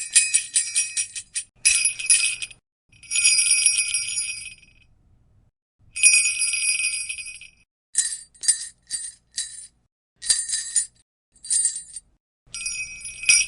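Sleigh bells shaken in separate bursts of bright jingling with quiet gaps between them. It starts with quick rapid shakes, then two longer shakes of about two seconds each, then a run of short single jingles.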